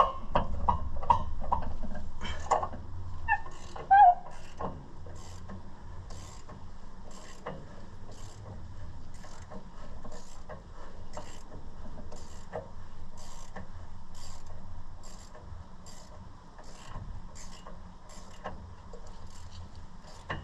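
Hand ratchet wrench clicking in steady strokes, about two a second, as loose bolts are backed out. There is a sharp metal clank about four seconds in.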